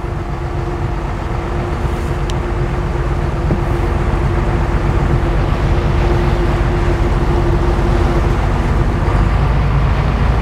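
Tugboat's diesel engine running steadily under way, a low even hum under a steady rushing noise, with a faint steady whine that fades out about eight seconds in.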